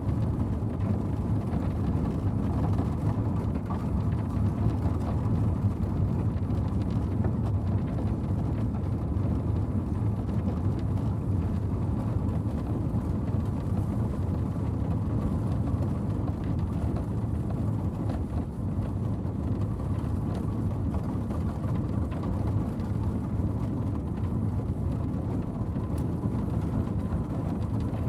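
Four-horse stagecoach on the move: a steady low rumble of the coach travelling along.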